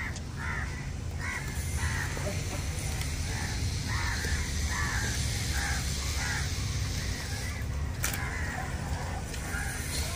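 Short animal calls repeating about every half second over a steady low rumble.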